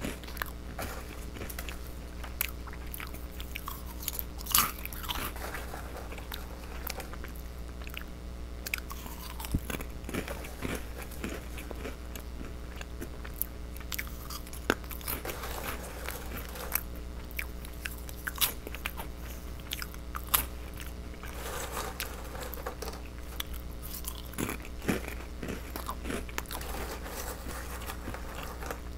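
A person chewing mouthfuls of crunchy goldfish-shaped crackers, with sharp, irregular crunches scattered throughout over a steady low hum.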